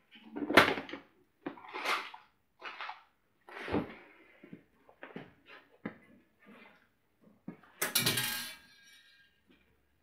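Hand-tool handling sounds as fasteners and tools are picked up: a string of short, uneven knocks and rustles, with one louder clatter about eight seconds in that rings on faintly.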